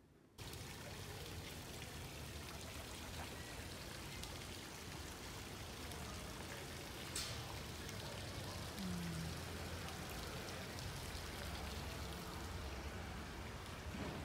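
Steady rain falling, with an even hiss that starts suddenly about half a second in.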